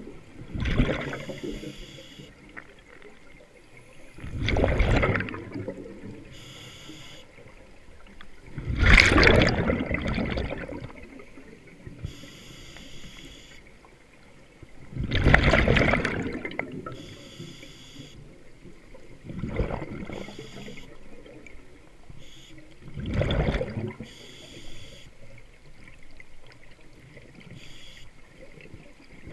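Scuba regulator breathing underwater: six loud bubbling rushes of exhaled air, one every four to six seconds, with a fainter hiss between them.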